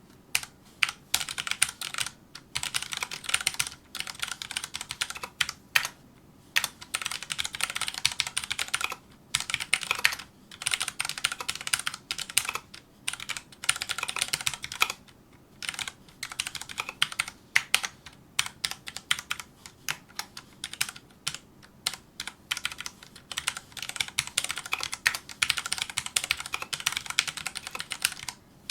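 Fast touch-typing on a Filco Majestouch2 mechanical keyboard with Cherry MX Brown switches: rapid runs of key clicks broken by short pauses every second or two.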